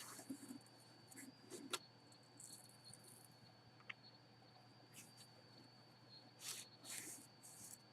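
Near silence: faint rustling and handling noises from a box and the jersey inside it being opened, with one sharp click just under two seconds in, over a steady faint high whine.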